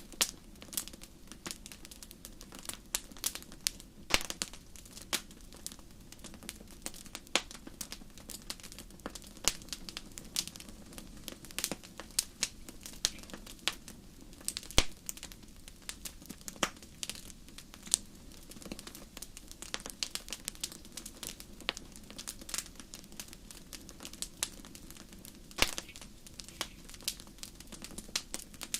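Wood fire burning in a fireplace: irregular sharp crackles and pops, several a second, with a few louder snaps, over a low steady rumble of the flames.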